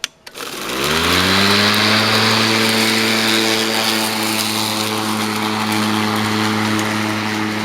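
Earthwise electric lawn mower switched on: a click, then the motor and blade spin up with a rising whine over about a second and run at a steady hum.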